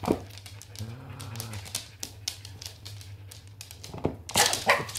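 Dogs' claws clicking and tapping on a wooden floor as they move about, with a short low voiced sound about a second in and two loud breathy puffs near the end.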